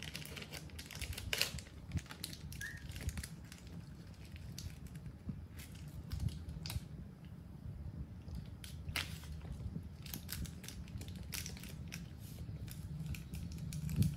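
Scattered small clicks and rustles of close handling, irregularly spaced, over a low steady hum.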